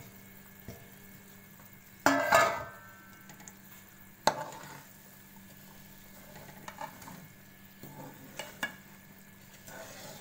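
A long metal spoon stirring ground chickpeas into melted jaggery and ghee in an aluminium pan, scraping and knocking against the metal. A loud ringing clank comes about two seconds in, a sharp knock about four seconds in, and lighter taps follow.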